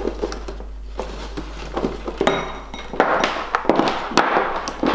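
Handling noise: cables rustling and dragging, with light clicks and knocks, and a louder stretch of rustling about three seconds in as a plug is pushed into a power socket on the floor.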